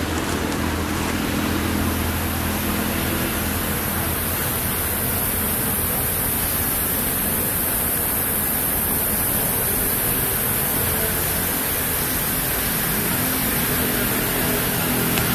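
Steady, even background noise with a constant high hiss and a faint low hum; no distinct calls, knocks or other events stand out.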